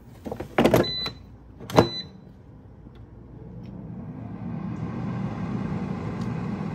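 Cosori air fryer: two clunks in the first two seconds, each with a short beep, then its fan starts and builds over a couple of seconds to a steady whir.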